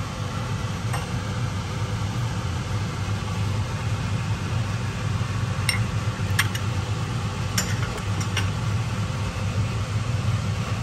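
Steady low hum of a kitchen fan running, with a few light taps and clicks near the middle from utensils knocking against the stainless pot.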